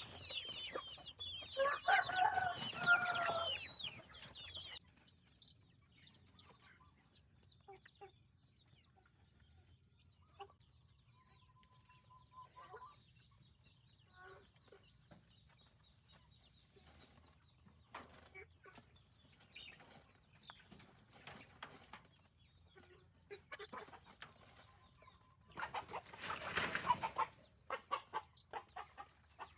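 Chickens clucking and squawking, loudest in the first few seconds, then scattered short clucks and small clicks, with a louder flurry near the end.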